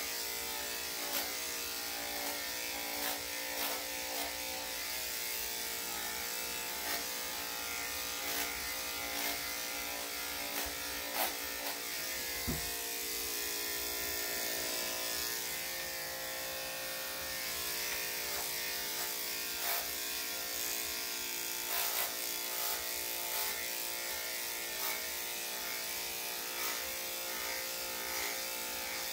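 Electric dog-grooming clippers with a #7 blade running steadily as they are worked through a spaniel's body coat: an even motor hum with scattered small clicks.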